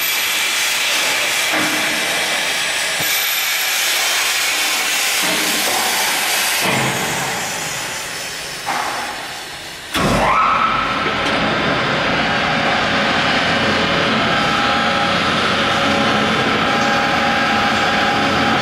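Industrial vacuum paddle blender running under test: a loud hiss starts suddenly and fades after about seven seconds. At about ten seconds a second loud rush starts, with a whine that drops in pitch and settles into a steady machine noise with several held tones.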